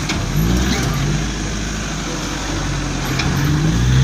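Toyota Hilux pickup's engine revving under load as it crawls up a steep, rutted dirt climb, its pitch rising and dipping and climbing again near the end.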